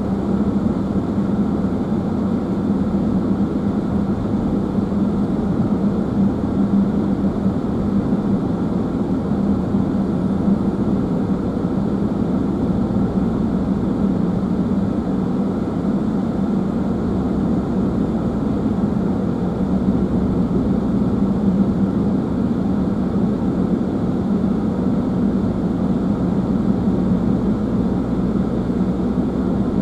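Steady cabin noise of a car cruising on a highway: engine and tyre drone with a constant low hum, heard from inside the car.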